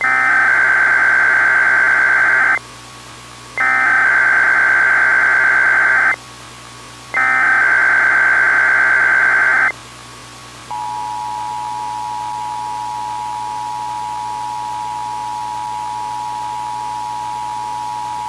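Emergency Alert System tones: three bursts of SAME header data, each a harsh buzzing warble about two and a half seconds long with a second's pause between them, then the two-tone EAS attention signal held steady for about eight seconds. The sequence is the lead-in to a tornado emergency warning.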